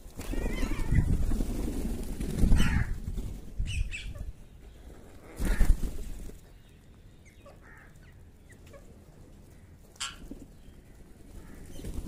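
A flock of rose-ringed parakeets and house crows: flurries of flapping wings as birds flutter up and settle, the loudest about five and a half seconds in, with a few short harsh calls. It goes quieter in the second half, apart from one brief sharp sound about ten seconds in.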